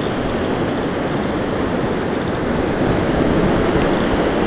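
Steady rush of a fast, rocky mountain river running over riffles and small rapids close to the microphone.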